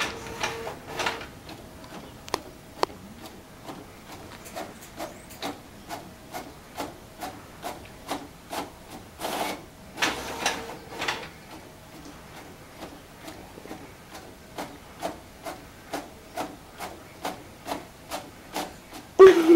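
Inkjet printer printing, its carriage making a steady rhythm of short strokes about two to three a second, with a few longer sweeping passes in the middle. A sudden louder sound comes right at the end.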